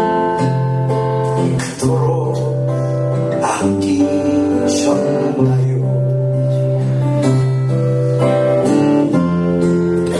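Acoustic guitar strumming chords of a slow praise song, steady strokes with held low notes, and a man's voice singing over it at times.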